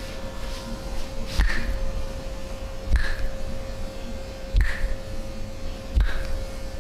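Massage strokes on the body: four soft thumps, each with a brief rub of hands on skin, about a second and a half apart, over a steady electrical hum.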